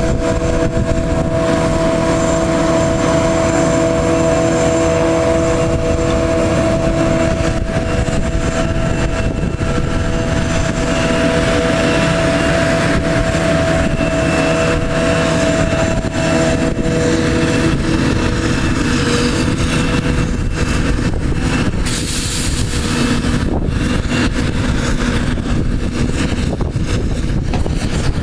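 Claas Jaguar 890 self-propelled forage harvester chopping maize, its engine and chopping drum running under load as one steady machine din with a constant whine over it. A tractor pulling the trailer alongside runs in the mix.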